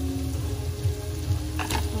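Soft background music with sustained notes over onion and garlic frying in butter in a stainless steel pot. A sharp clatter comes near the end.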